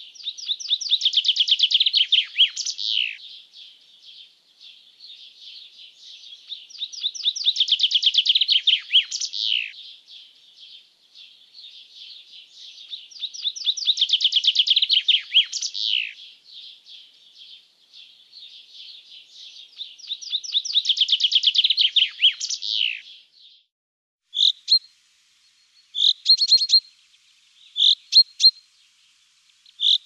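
Madeira chaffinch singing: four song phrases about six seconds apart, each a rapid run of notes ending in a downward flourish. In the last few seconds come shorter, separate bursts of notes.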